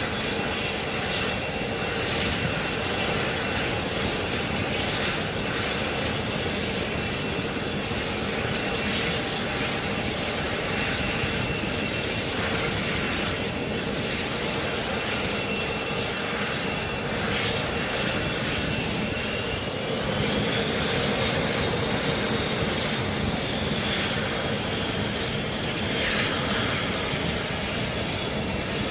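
Jet engines running on an aircraft carrier's flight deck: a steady high whine over a continuous rushing roar. About twenty seconds in the whine rises slightly in pitch and the sound grows a little louder.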